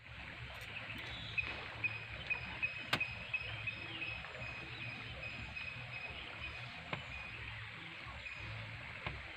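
Outdoor river ambience: a high, steady drone of wildlife calls with faint repeated chirps, and scattered sharp knocks, the loudest about three seconds in.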